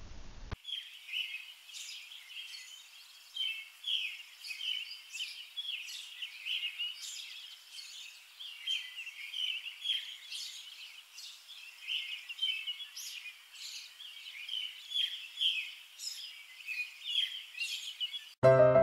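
Birds chirping: a dense, continuous run of short high chirps and twitters, thin-sounding with no low end. Piano music starts at the very end.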